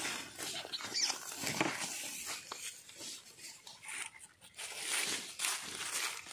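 Dry leaf litter rustling and crackling irregularly under a puppy's and a dog's paws as they walk about.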